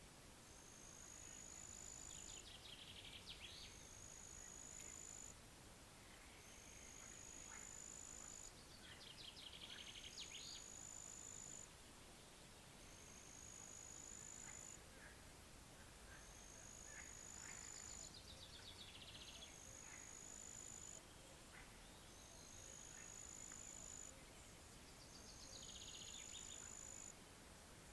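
Faint pond-side ambience: an insect's high, steady call about a second and a half long, repeating every two and a half seconds or so, with four falling bird trills spread through it, over a faint low hiss of wind.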